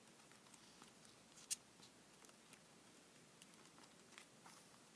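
Near silence with faint rustling and light clicks of paper and plastic notebook pieces being handled, one sharper click about a second and a half in.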